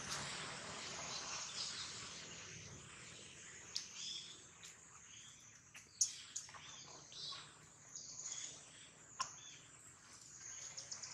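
Outdoor forest ambience: a steady high insect hiss with scattered short high chirps and a few sharp clicks, the loudest click about six seconds in.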